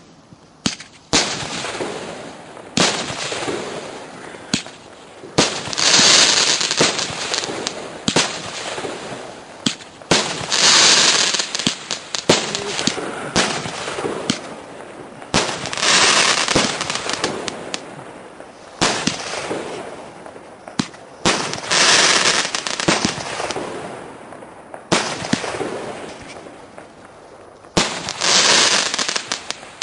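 A 15-shot roman candle firework cake firing its shots one after another, a sharp pop every second or two. After several shots comes a dense crackle of crackling stars.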